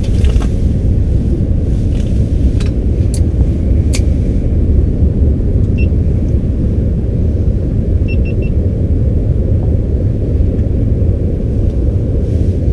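Steady low rumble, with a few light clicks in the first four seconds and short electronic beeps: one about six seconds in, then three quick ones about eight seconds in.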